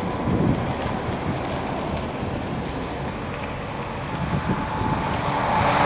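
Wind rumbling on the microphone, with a road vehicle coming up and getting louder over the last second or so.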